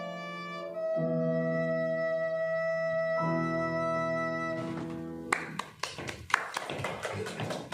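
Recorder and piano play the closing held notes of a piece, which end about five seconds in. Scattered hand clapping from a small audience follows.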